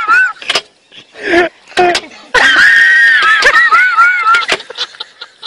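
A person's long, high-pitched, wavering shriek lasting about two seconds, starting about two seconds in, after a few short cries.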